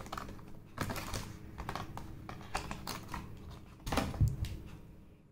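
Hard plastic packaging tray handled as neckband headphones are pried out of it: a run of irregular clicks, taps and crackles, thickest about a second in and again near four seconds.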